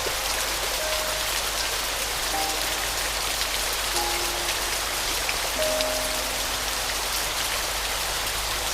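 Steady rain with a fine patter of drops, with a slow piano melody of a few widely spaced soft notes over it.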